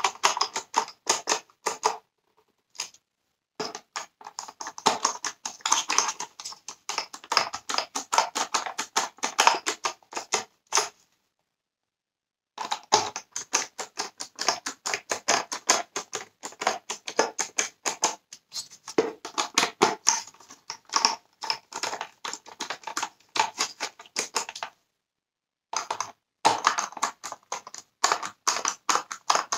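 Hand screwdriver driving Torx screws into the plastic housing of a Dyson Cinetic Big Ball cyclone unit: runs of rapid clicking, broken by short pauses about two, eleven and twenty-five seconds in.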